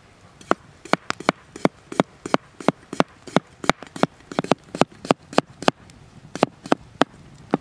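Heavy cleaver-style knife slicing raw potatoes into thin rounds, each cut ending in a sharp knock of the blade on a wooden board. About three chops a second, with a short pause near the end.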